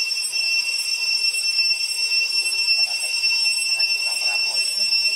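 Cicadas droning steadily at a high pitch, one even, unbroken whine that doesn't change.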